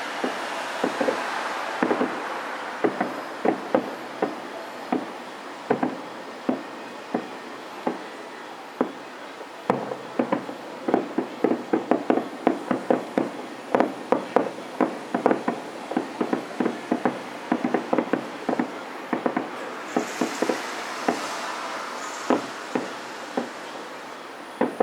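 Distant aerial fireworks shells bursting as a rapid string of sharp pops and bangs. They grow densest and fastest in the middle, several reports a second.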